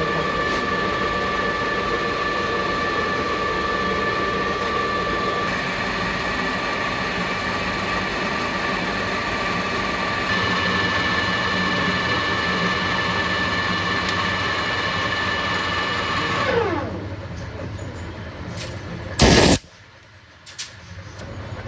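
Metal lathe running with a steady whine, then switched off about seventeen seconds in, its pitch falling as the spindle slows down. A loud, sharp knock comes about two seconds later.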